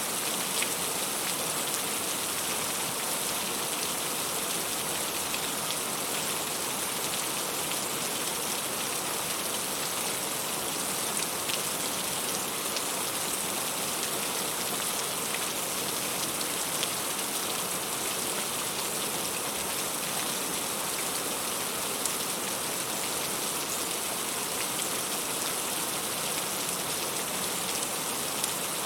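Heavy rain falling steadily on fruit and leaves, an even downpour hiss with scattered sharper drop hits.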